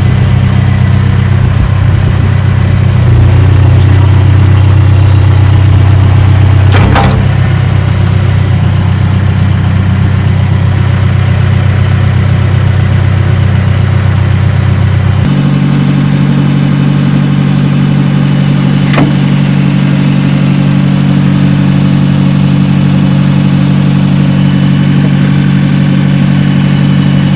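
A backhoe's engine running steadily, loud and low-pitched. About halfway through its speed steps up to a slightly higher, steady pitch.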